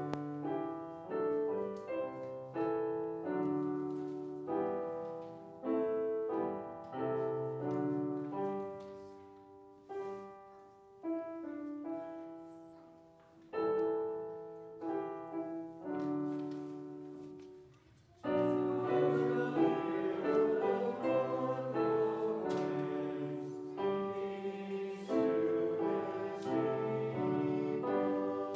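Piano playing the refrain tune of a sung psalm as an introduction: slow phrases of chords that die away between them. About 18 seconds in, the playing turns fuller and louder.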